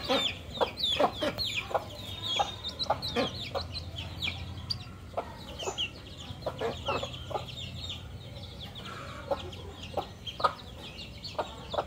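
A flock of chickens clucking, with many short overlapping calls and quick high falling chirps scattered throughout, over a faint steady low hum.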